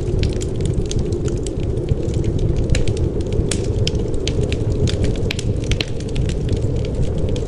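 Wood fire crackling, with many sharp, irregular pops and snaps over a steady low rush of wind.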